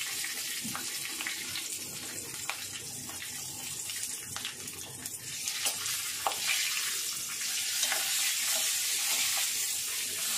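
Hot oil sizzling in a metal kadhai as green chillies fry in a tempering of mustard seeds and curry leaves: a steady hiss, with a spatula stirring and scraping against the pan in scattered clicks.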